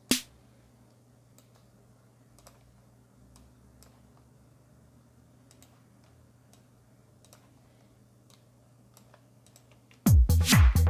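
Soft clicks of a computer mouse and keyboard at a quiet desk over a faint steady hum, with one short sharp hit at the very start. About ten seconds in, an electronic drum-machine beat plays back loudly: kick drums falling in pitch and snare hits.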